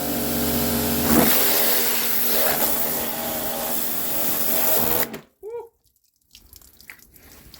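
Pressure washer running, its pump motor humming steadily under the hiss of the water spray, then cutting off abruptly about five seconds in.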